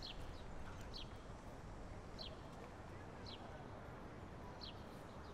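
Faint bird chirps: about five short, high notes, each sliding downward, spaced roughly a second apart, over a low steady outdoor background.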